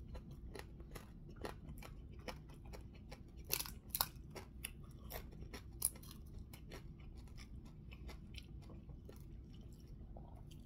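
A person eating with the fingers: chewing with a string of soft mouth clicks and small crunches as fried fish is picked apart, the sharpest crunches about three and a half to four seconds in and again near six seconds.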